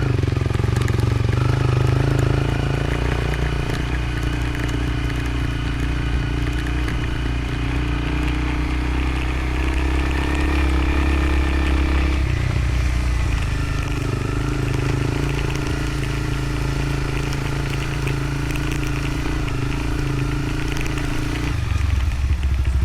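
Motorcycle engine running steadily while riding a dirt road, with rough-road rattle and wind noise over it. The engine note shifts about halfway through and again near the end.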